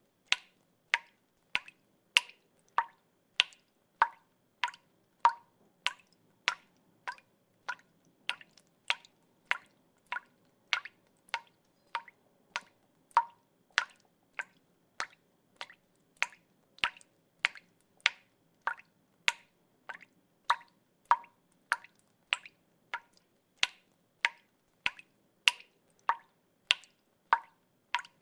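Water dripping in a steady, even rhythm of single drops, a little under two a second, each a short, sharp drop with a brief ring.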